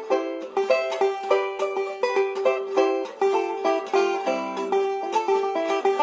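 Background music: a quick plucked-string tune, several notes a second, with no bass.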